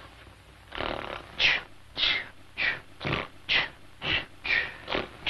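Several men snoring in turn, starting about a second in, roughly two snores a second, some low and rasping and others ending in a high falling whistle-like breath.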